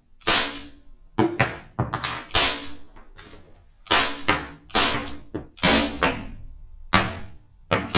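Marushin Colt Government M1911A1 cap-firing model gun shooting caps through Cannonball loud plugs with prop powder: about a dozen sharp bangs at uneven spacing, some in quick pairs, each with a short ringing tail.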